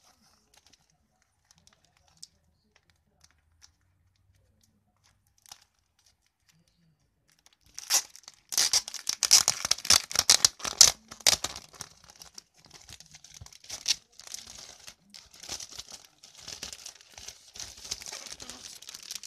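Thin clear plastic crinkling and rustling as hands handle it. It starts about eight seconds in after a few faint clicks, is loudest over the next three seconds, then carries on more softly.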